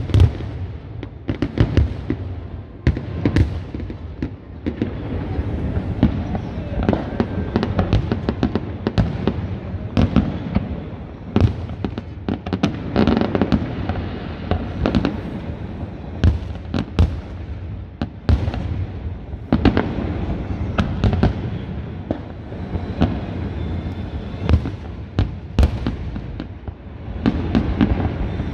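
Aerial fireworks bursting in a continuous display: many sharp, irregularly spaced bangs over a steady low background of more distant bursts.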